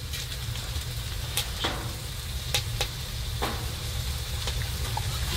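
Steak sizzling steadily on a woodstove, with a few sharp pops scattered through the hiss.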